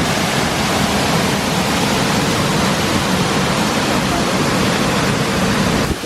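Waterfall rushing: a steady, dense noise of falling water that breaks off abruptly near the end.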